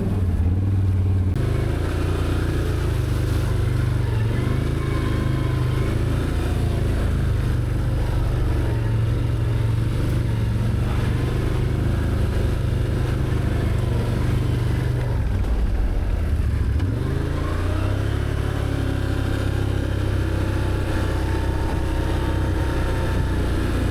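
Can-Am Outlander ATV's V-twin engine running steadily under throttle, its revs dropping and climbing back up about two-thirds of the way through.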